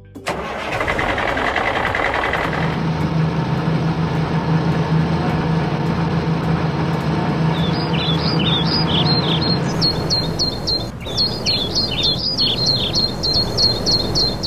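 A truck engine sound effect running steadily with a low hum. Small birds chirp repeatedly from about halfway through.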